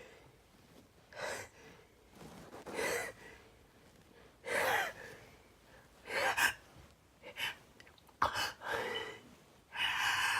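A person's short gasping breaths, about seven of them, coming closer together towards the end: the build-up to a sneeze.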